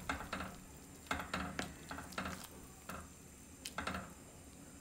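Wooden chopsticks stirring ramen noodle soup in a stainless steel pot: an irregular run of short clacks and splashes as the sticks move through the broth and knock the pot.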